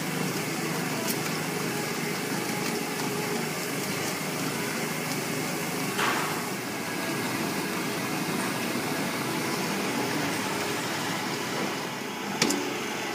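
Vertical stainless-steel plastic color mixer running steadily: motor hum under the continuous swish of plastic granules and powder being churned by the rotating blade. A brief knock comes about halfway and a louder one near the end.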